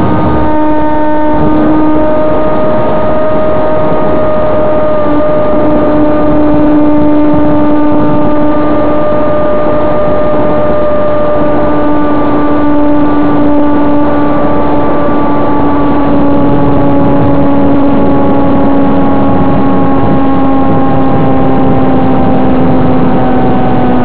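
Electric motor and propeller of a foam RC airplane, heard from a camera taped to the airframe, running steadily at flying throttle: a loud, steady whine whose pitch sinks slowly, over a rushing noise.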